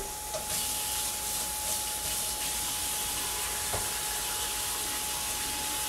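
Kitchen faucet turned on about half a second in, water running steadily into a sink, over hamburger patties sizzling on an electric grill and a faint steady whine.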